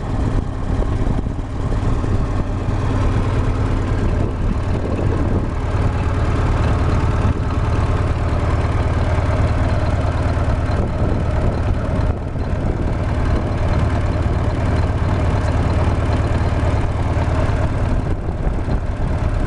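Mid-1950s Caterpillar D315 60 hp diesel engine running steadily, with a deep, even hum.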